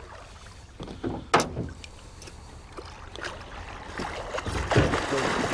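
Water splashing and churning as a hooked musky thrashes at the surface beside a boat while being netted, building to its loudest near the end. A single sharp knock about a second in.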